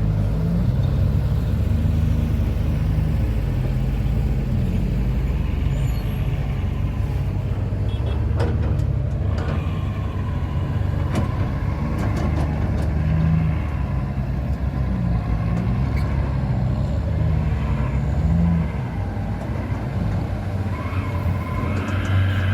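Hitachi ZX200-5G excavator's diesel engine working under load as it digs and swings, its note shifting up and down as the load changes, with a few sharp knocks in the middle part.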